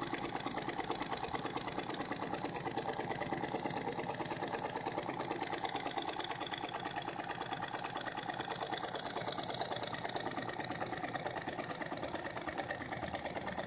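Homemade single-cylinder steam engine running fast on its first run: a rapid, even chuffing beat of exhaust steam and piston strokes that holds steady.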